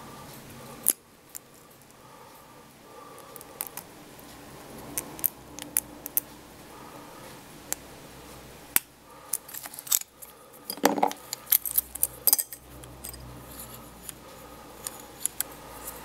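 A lock pick and tension wrench clicking and scraping against the pin tumblers of a brass Abus padlock during single-pin picking. There are scattered sharp ticks, then a busy run of louder clicks and metal rattles a little past halfway, around when the padlock comes open.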